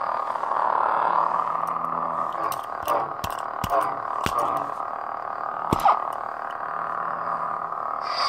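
Lightsaber soundboard (Crystal Shard 2.5) playing an Old Republic-style Sith sound font through the hilt's speaker: a steady electric hum that swells and wavers as the hilt is swung, with a few sharp hits in the middle. Near the end a brighter burst starts, the blade-off sound, as the saber is shut down.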